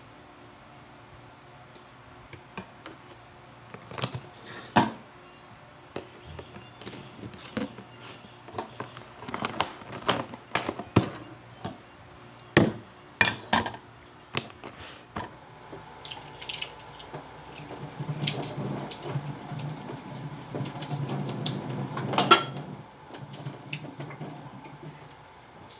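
Kitchen tongs and a bowl clacking and knocking in scattered sharp taps, then a kitchen tap running into a sink for several seconds while dishes are handled, with one loud clack near the end of the running water.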